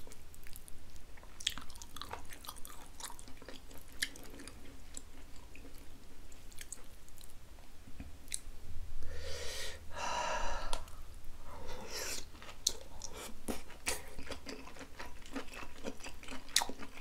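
Close-miked eating sounds: chewing braised pork belly and green onion kimchi, with many wet mouth clicks and smacks. A longer slurp comes about nine seconds in and a shorter one near twelve seconds.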